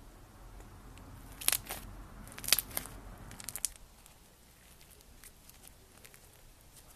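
Crunchy slime being handled, giving bursts of sharp crackling clicks between about one and a half and three and a half seconds in, then fainter scattered crackles.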